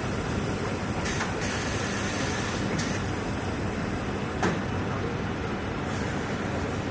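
Steady running noise of an industrial robotic cutting and welding cell, with a few sharp mechanical clicks, the clearest about four and a half seconds in.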